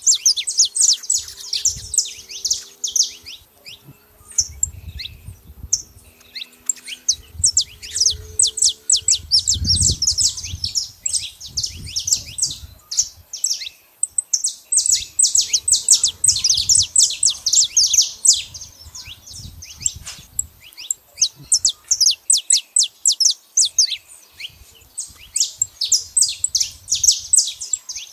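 Saffron finch calling and singing: long runs of rapid, sharp, high chirps, broken by a few short pauses.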